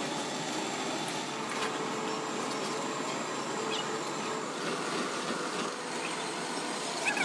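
Steady mechanical running noise of workshop machinery, with a few faint light clicks.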